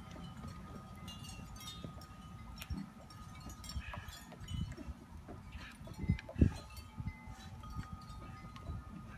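Light, scattered tinkling of chimes over a low rumble on the microphone, with a single loud knock about six and a half seconds in.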